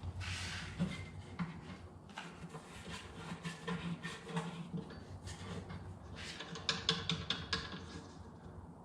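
Small clicks, knocks and rattles of mounting hardware as an aluminium side case is fitted and fastened to its rack, with a quick run of sharp clicks about six to seven seconds in.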